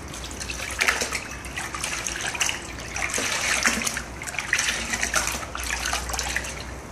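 Water splashing and sloshing in a plastic basin as a long bundle of wet human hair extensions is repeatedly plunged, squeezed and lifted, with water streaming off the hair back into the basin.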